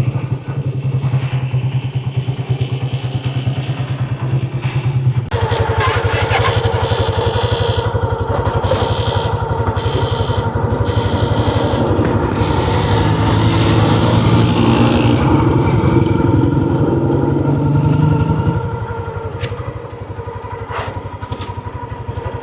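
Motorcycle engine running steadily. About five seconds in, the sound grows louder and fuller, then drops back a few seconds before the end.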